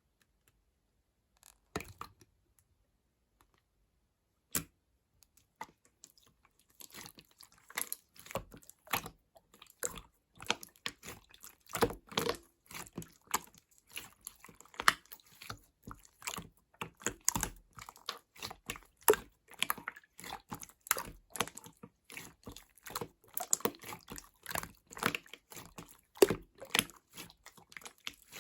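Slime being squished and worked by hand, giving off irregular wet clicks and pops. A few single clicks come in the first seconds, then the clicking turns dense from about six seconds in.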